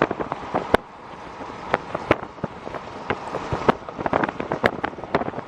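Steady wind rush with many irregular sharp taps and knocks scattered through it, several a second at times.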